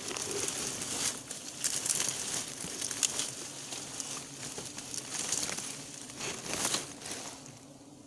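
Irregular rustling and crackling handling noise from a phone held with a finger over it, rubbing near the microphone. It eases off near the end.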